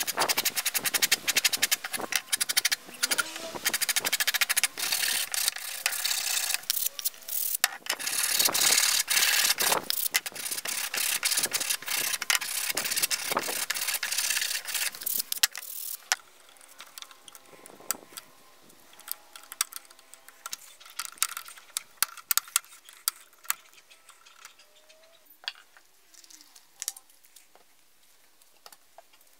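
Plywood disc edge being hand-sanded with a wooden sanding stick: rapid back-and-forth rasping strokes. About sixteen seconds in the sanding stops, leaving quiet with scattered light clicks and taps.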